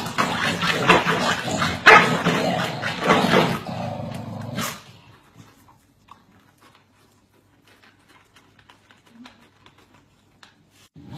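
Corgis barking at each other in a rapid, continuous run that stops about five seconds in, leaving only faint scattered ticks.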